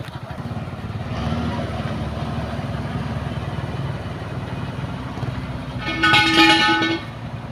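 Truck engine idling with a steady low pulse. About six seconds in, a loud vehicle horn sounds for about a second.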